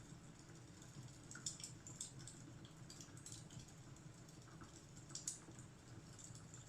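Fireplace fire crackling faintly: irregular small pops and snaps, one sharper pop about five seconds in, over a steady low rumble.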